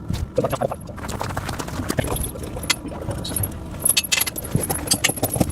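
Steel pewag Doppelspur tractor tire chains clinking and rattling as they are handled, an irregular run of metallic clicks and jingles.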